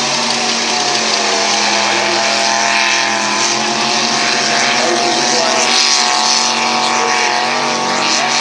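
Mud-racing truck engine held at high revs, a steady drone with little change in pitch, over a constant hiss of mud and water spray.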